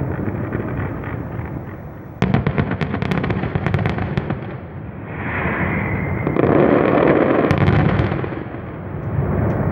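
Fireworks going off over a steady low rumble. About two seconds in comes a rapid run of crackling bangs, then a brief whistle. A louder, denser burst of crackle follows a little after the middle.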